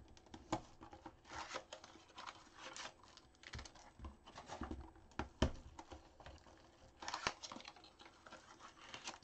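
Faint rustling, scraping and tearing as a Topps Triple Threads card box and its wrapping are opened by hand, with scattered small clicks; a sharper click comes about five and a half seconds in.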